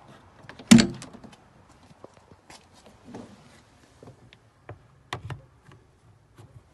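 A vehicle door gives one loud thunk about a second in, followed by scattered lighter clicks and knocks in the cabin.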